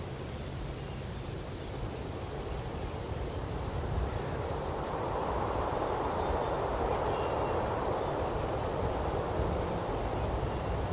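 A small bird giving short, high, falling chirps, about one a second, over a steady outdoor hiss that grows louder about halfway through.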